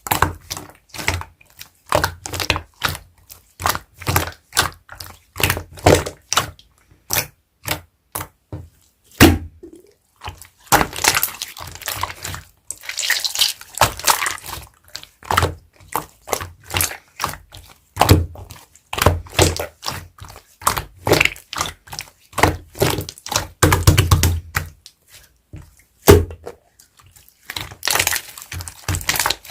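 Hands playing with slime: a steady run of sharp wet clicks and pops, about two or three a second, with a few longer squishing stretches as the slime is pressed and folded.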